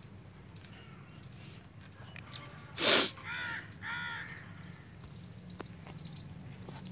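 Two crow caws in quick succession, each rising then falling in pitch, about three seconds in. They come just after a short, loud, breathy burst of noise, the loudest sound here, over a low steady background hum.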